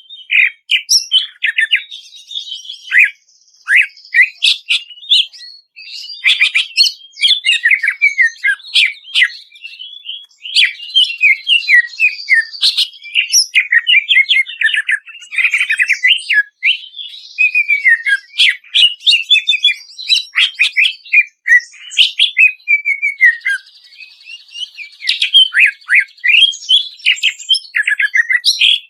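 Cucak ijo (green leafbird) singing a long, varied song of rapid chirps, slurred whistles and trills, broken by a few buzzy stretches and short pauses.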